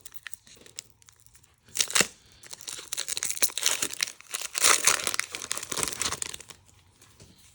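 Foil wrapper of a Pokémon trading-card booster pack crinkling as it is torn open. There is a sharp crackle about two seconds in, then a few seconds of continuous crinkling that fades out near the end.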